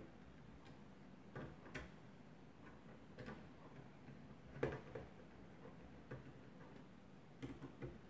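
Faint, irregular clicks of a small precision screwdriver working the screws of a laptop's heatsink and cooling-fan assembly, metal tapping on metal, the loudest a little past halfway.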